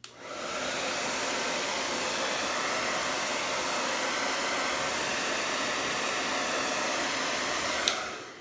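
Hand-held blow dryer running steadily, blowing pour paint across a canvas. It comes on right at the start and stops with a click near the end.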